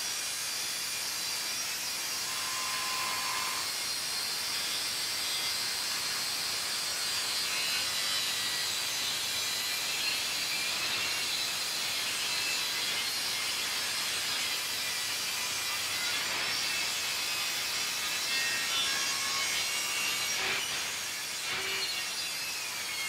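Table saw running steadily as a block of timber is fed through the blade, cutting wood.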